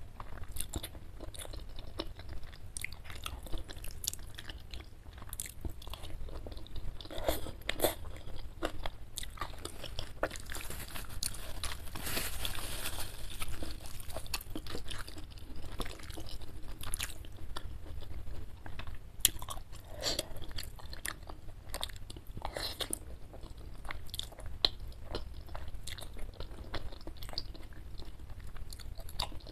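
Close-miked wet chewing and slurping of spicy chicken noodles and chicken meatballs, with frequent small clicks and crunches, over a steady low hum.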